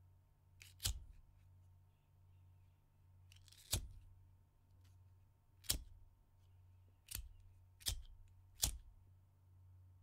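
A disposable plastic lighter being clicked: six sharp ignition clicks at irregular intervals, the last three coming quickly one after another.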